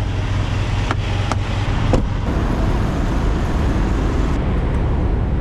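Steady low rumble of an idling heavy truck engine with a hiss over it, and a few sharp clicks in the first two seconds.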